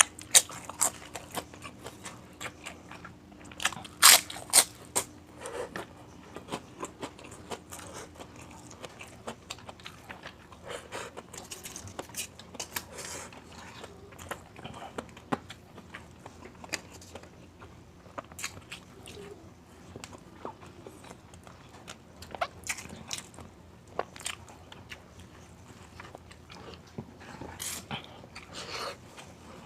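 Close-miked eating: a person biting and chewing crunchy food, with many short crunches and clicks and a couple of loud crunching bites about four seconds in.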